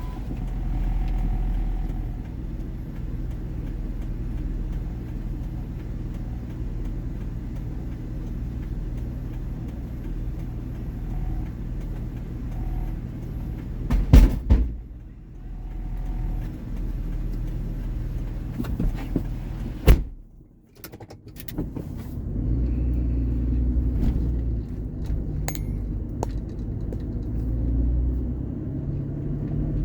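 Vehicle engine idling steadily with a low hum. Two loud sharp knocks sound about halfway through and again about two-thirds through, the second followed by a brief drop in the hum before it comes back.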